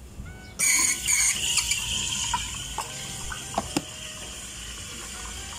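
Running water, starting with a rush about half a second in and gradually easing, with a couple of light clicks near the middle.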